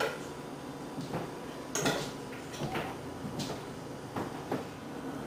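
Metal fork clinking and scraping against a plate during eating, with several short sharp clinks at irregular intervals.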